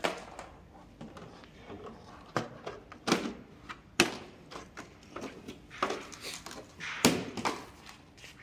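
Scattered clunks and knocks as parts of a citycoco electric chopper scooter are handled and fitted by hand, the sharpest about 3, 4 and 7 seconds in.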